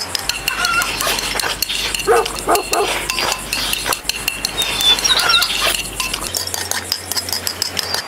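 Dishes and utensils clattering in quick short clicks, with a dog barking a few times about two seconds in.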